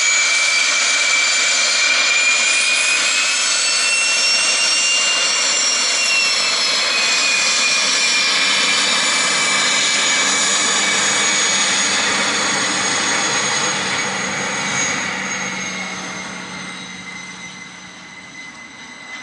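Twin Williams FJ44-3A turbofans of a Cessna Citation CJ3 running while the jet taxis, a loud high whine with a slowly wavering tone. The sound fades over the last several seconds as the jet moves away.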